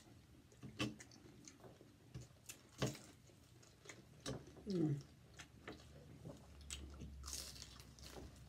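Two people biting and chewing crispy fried egg rolls close to the microphone: irregular crunches and wet chewing. About five seconds in, a short hum of the voice falls in pitch, the loudest sound here.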